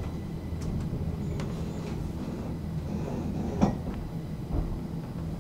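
Steady low electrical hum inside a metro carriage, with a few light clicks and a single knock about three and a half seconds in.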